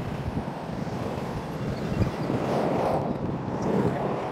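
Car traffic passing on a road, a steady tyre-and-engine wash that swells a little as a car goes by near the middle, with wind buffeting the microphone.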